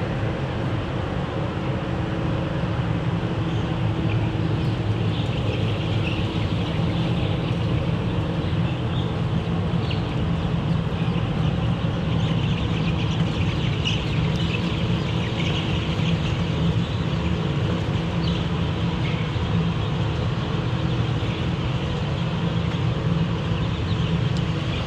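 Steady low hum of a poultry house's ventilation and heating, with a large flock of young pullets peeping in short, scattered chirps over it.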